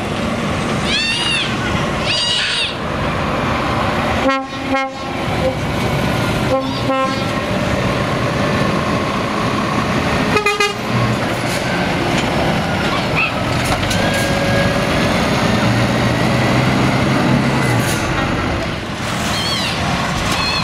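Heavy diesel truck tractor units pulling out one after another, engines running under load, with short blasts of multi-tone air horns: a couple about four seconds in, two more near seven seconds, and one about ten seconds in.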